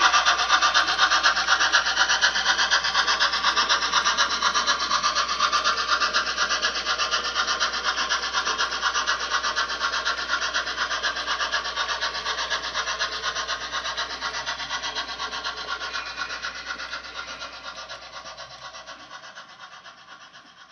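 HO scale model train running along the track: a fast, even rattle of the wheels and the locomotive's drive that fades steadily as the train moves away.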